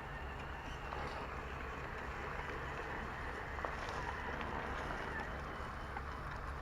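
Small electric motor and gearing of a scale RC crawler whining steadily as it drives, with a few small clicks over a background hiss.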